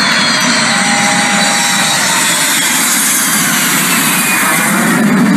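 Boeing 747 Shuttle Carrier Aircraft with a space shuttle on its back passing low overhead on landing approach. Its four jet engines make loud, steady noise, with high whines that slowly fall in pitch as it goes by. The sound turns deeper near the end.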